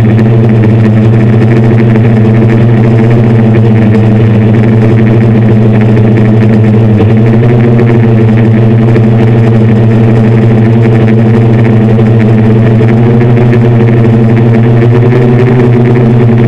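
Six brushless motors and 10-inch propellers of a hexacopter, a DJI F550 copy, humming steadily in flight, heard loud and close from a camera mounted on the craft.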